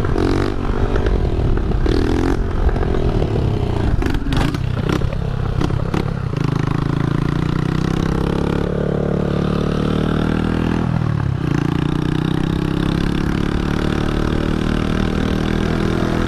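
Small four-stroke single-cylinder motorcycle, a Honda CG 125 with a loud exhaust, riding along with the engine note rising and falling as it is revved and eased off. Several sharp cracks come about four to six seconds in.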